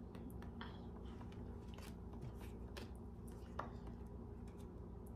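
Playing cards and card boxes being handled on a table: scattered faint clicks and taps over a steady low hum.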